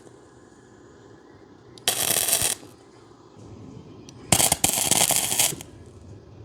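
Wire-feed welder arc crackling in two short bursts, a brief one about two seconds in and a longer one with a momentary break a little after four seconds: a beginner laying short welds.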